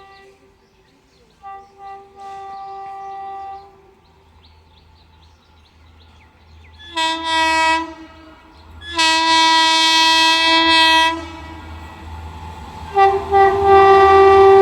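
Indian Railways locomotive horn sounding again and again as a train approaches: quieter toots and a held blast in the first few seconds, then loud blasts about seven and nine seconds in, the second held about two seconds, and a short toot and long blast near the end. Under the horn, the rumble of the approaching train grows louder.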